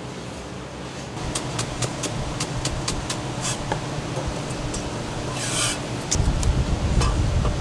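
Kitchen knife slicing long onion into fine shreds on a cutting board: quick, even taps about five a second. A short scrape follows, and a low rumble grows much louder about six seconds in.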